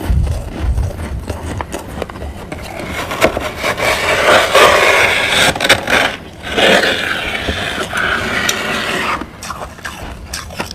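Crunchy frost being scraped and crunched: a dense, crackly scraping that grows loud in the middle few seconds, with a brief break partway through.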